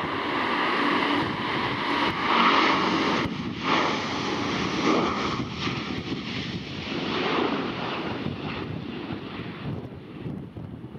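Airplane engines passing close by: a loud, even rushing noise that is strongest about two to three seconds in, then slowly fades.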